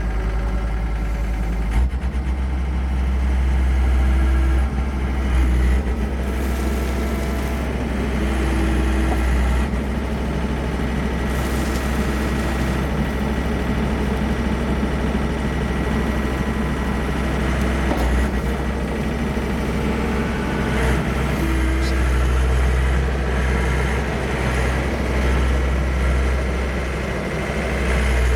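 John Deere 325 skid steer loader's diesel engine running steadily with a deep drone, with a few short whines heard over it.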